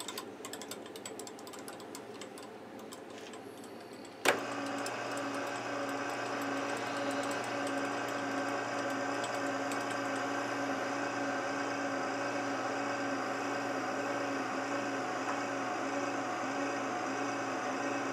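A few light clicks and taps, then about four seconds in a vertical milling machine's motor starts with a sudden jolt and runs steadily with a hum and a light regular pulsing.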